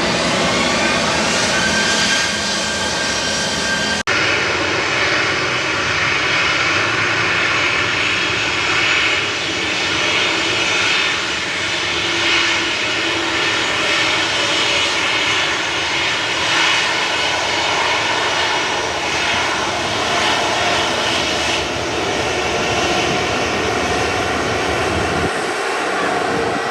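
Jet engines of a departing Boeing 737-900ER, CFM56 turbofans, running loud, with a whine rising in pitch over the first two seconds. The sound breaks sharply about four seconds in, then carries on steadily.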